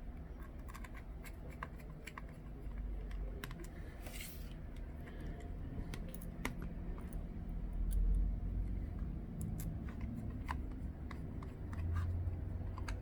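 Small, irregular clicks and taps of a screwdriver and small parts being handled and fitted into a tablet's frame during reassembly, with a brief scraping rasp about four seconds in.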